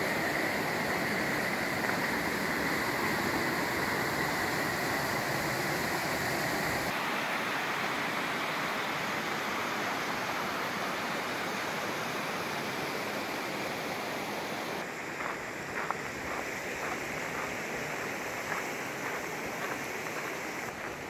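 Steady rush of a shallow creek running over rocks, its tone changing abruptly about seven seconds in. From about fifteen seconds in, the water is quieter and footsteps on a dirt trail sound as regular light steps.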